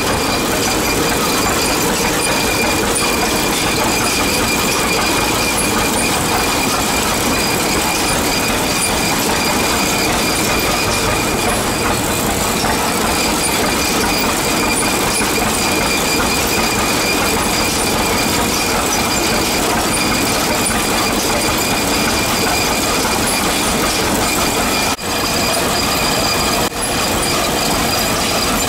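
Antique belt-driven threshing machine running steadily: a loud, dense mechanical noise of turning belts, pulleys and shaking works, with steady high whines over it. It drops out for an instant twice near the end.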